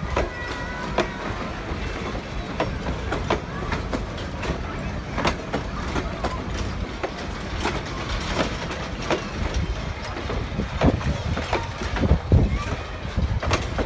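Steel heritage passenger coaches rolling slowly past, their wheels clicking and knocking over the rail joints over a low rumble. A heavier knock comes near the end.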